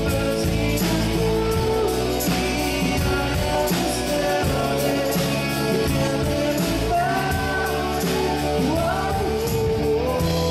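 Live band music: a man singing lead over acoustic guitar, with bass and electric guitar accompanying.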